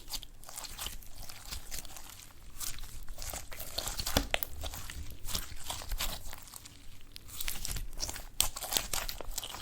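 Eyeshadow slime being squished and worked by hand, giving a dense run of irregular sticky crackles, clicks and small pops.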